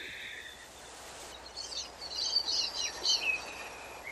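Birds chirping in short high calls, starting about a second in, over a steady hiss of rushing water.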